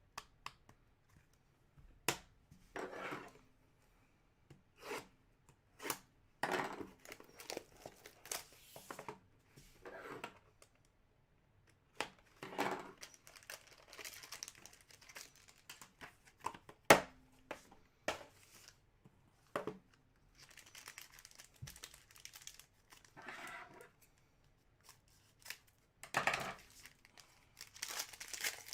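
Trading card packs being torn open and handled: wrappers tearing and crinkling in short rustling bursts, with cards scraped and shuffled. There is one sharp click about 17 seconds in.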